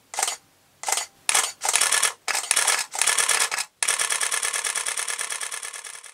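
Camera shutter firing: a few single shots, then short bursts, then a long rapid burst at about ten frames a second that fades away near the end.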